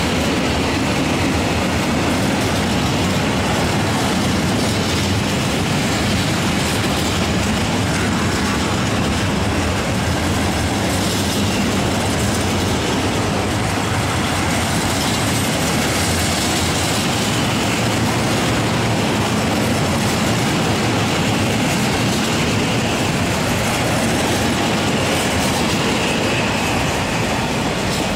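Open high-sided freight wagons of a long freight train rolling steadily past, their wheels rumbling and clattering on the rails.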